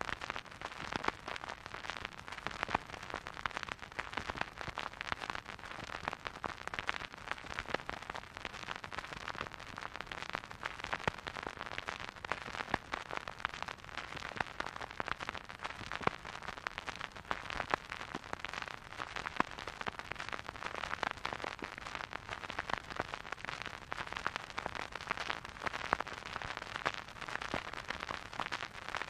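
Surface noise of a vinyl record turning on a record player with the needle in the groove: a steady soft hiss with dense crackle and small pops throughout.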